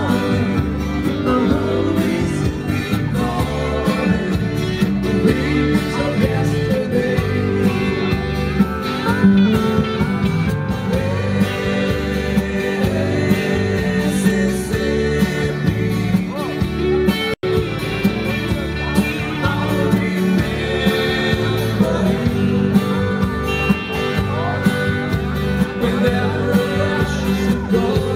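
Live country band playing: a man singing over guitars and drums with a steady beat. The recording cuts out for an instant about two-thirds of the way through.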